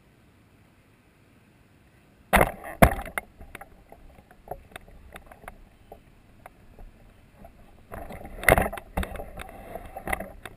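Camera handling noise as the camera is picked up and moved: two sharp knocks about two seconds in, scattered clicks and rubbing, then a stretch of rubbing and knocks near the end.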